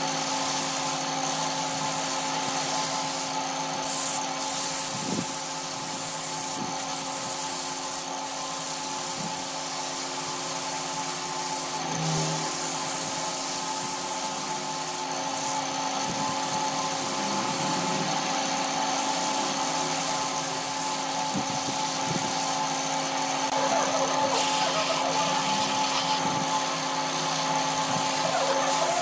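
Electric wood lathe running steadily, a hum of several constant tones, while sandpaper is pressed against the spinning wooden piece with a rasping rub that gets louder near the end.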